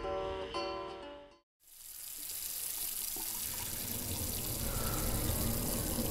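Plucked guitar music fades out about a second in; after a brief silence, a tap starts running steadily into a sink.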